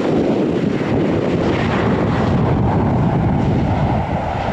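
Jet airliner passing close by: a loud, steady rush of engine noise with wind buffeting the microphone.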